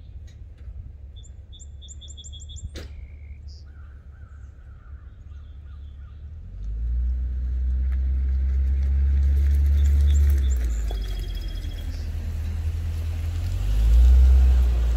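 Hummer H3 Alpha's 5.3-litre V8 through a Magnaflow Street Series cat-back exhaust, a deep exhaust note that builds from about six seconds in and is loudest as the truck drives past close near the end. Birds chirp briefly in the first few seconds.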